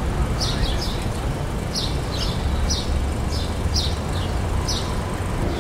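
Outdoor ambience: a bird chirping repeatedly in short, high, falling notes, about a dozen in a few seconds, over a steady low rumble.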